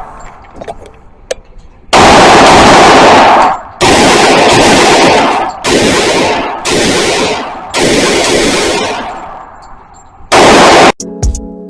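Gunfire in six long bursts, loud enough to overload the recording: a burst of about a second and a half some two seconds in, four shorter bursts in quick succession, and a last brief burst near the end, typical of automatic fire.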